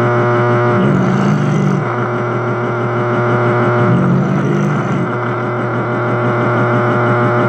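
Loud, continuous electronic noise drone, made of steady low hum tones under a fast, pulsing, distorted texture. It swells brighter in the low range about a second in and again around four seconds.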